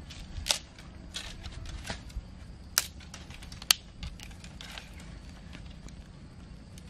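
Dry twigs and thin sticks being snapped by hand: about half a dozen sharp cracks at irregular intervals, with lighter rustling of sticks between them.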